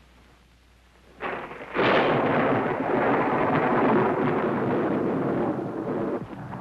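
A loud rushing noise with no clear pitch sets in suddenly about a second in, jumps louder half a second later and holds for about four seconds before easing off.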